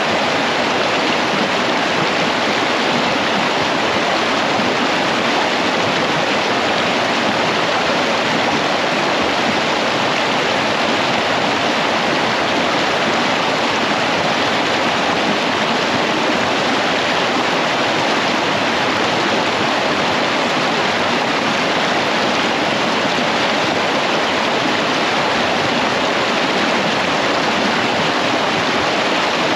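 Creek water rushing over rocks in shallow rapids, a steady, even rush.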